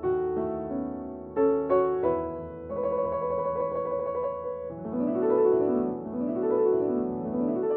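Background piano music: struck chords and single notes, then from about five seconds in rolling arpeggios that rise and fall.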